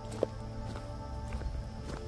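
Footsteps on a trail, irregular crunching steps with a sharp knock about a quarter second in, over background music of steady held tones.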